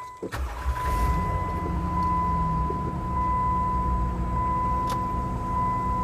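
A tired 200,000-mile Jeep Wrangler JKU engine cold-starting and settling into a steady idle, with a thin high-pitched tone through most of it and a single click about five seconds in.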